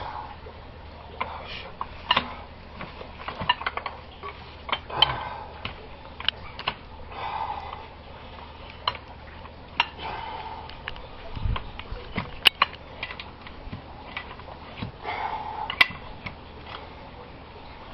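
Metal pipe fittings and hand tools clinking and knocking as they are handled during gas pipe work: scattered sharp clicks, some brief scraping, and one dull thump about two-thirds through.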